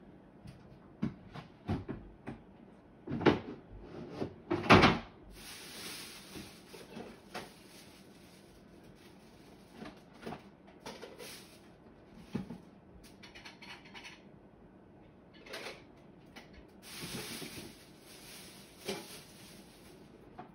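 Someone rummaging through stored things: scattered knocks and clunks, two louder thuds about three and five seconds in, and bursts of rustling.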